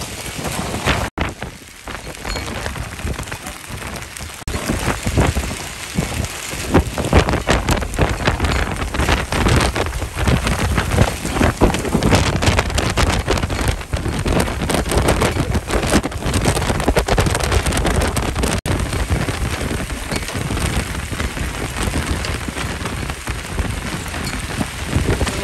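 A wind-driven hailstorm with heavy rain: a dense, constant clatter of hailstones and rain pelting the ground, with a gusting wind behind it. It grows heavier about five seconds in.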